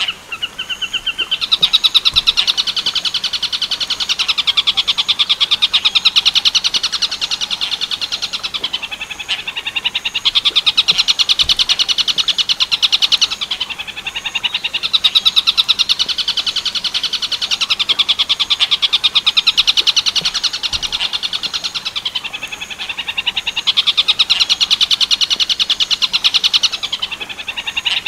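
Tengkek buto bird call: a fast, loud rattling trill of high notes in long phrases of several seconds, breaking off briefly between phrases and starting again.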